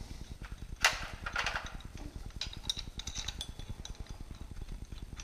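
Small metal bolts clinking and tapping as they are handled and hand-started into a metal pulley flange, with one sharper clack about a second in and lighter ticks after it.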